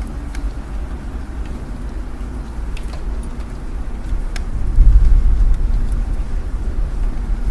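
Low rumble of city road traffic that swells about five seconds in as a vehicle passes, with a few scattered raindrop taps.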